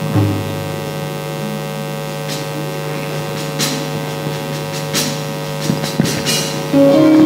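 Steady electrical mains hum from the stage sound system, with a few faint clicks. Near the end a few instrument notes begin.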